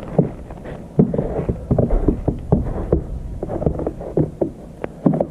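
Footsteps crunching through fresh snow about an inch and a half to 2 inches deep, a quick irregular series of short crunches.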